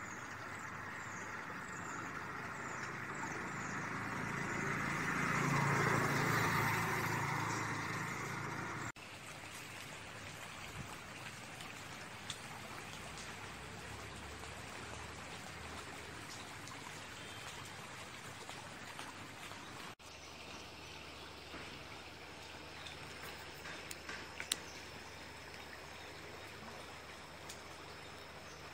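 Steady rush of a polluted urban stream flowing over rocks and debris. It swells louder about five seconds in. The background changes abruptly twice, where separate recordings are joined.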